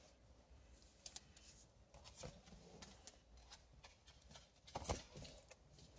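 Faint handling of comic books: soft paper rustles and a few light clicks, the loudest about five seconds in.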